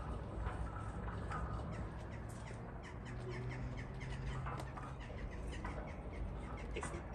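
Crows cawing over a low steady rumble, with light footsteps on a gravel drive.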